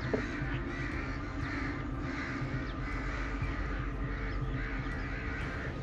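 A flock of crows cawing, many calls overlapping in a steady chorus of a few caws a second.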